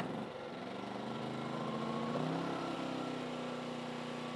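Powerhorse 2000-watt portable generator's small engine running, just started on a single pull of the recoil cord after sitting unused for a week. Its pitch climbs a little about two seconds in, then holds steady.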